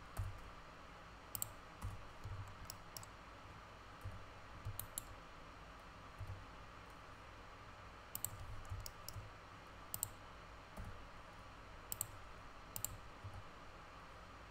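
Faint, irregular clicks of a computer mouse and keyboard keys being pressed, a few every second or two, some in quick pairs.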